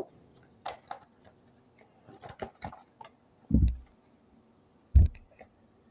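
Oracle cards being handled by hand: scattered light clicks and taps of card stock, with two low thumps, about three and a half and five seconds in.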